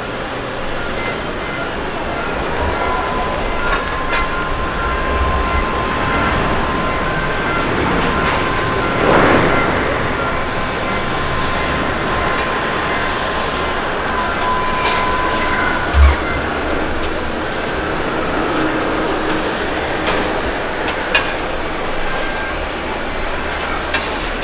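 Boeing 777 jet airliner on its landing rollout after touchdown: a steady jet engine rush with a high whine held for much of the time, swelling about nine seconds in. A sharp thump comes about sixteen seconds in.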